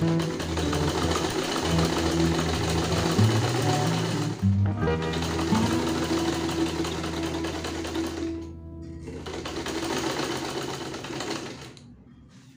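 Black vintage-style sewing machine, driven by a small add-on electric motor, stitching tarpaulin fabric in a fast rattling run. It stops briefly twice and falls silent shortly before the end, with background music underneath.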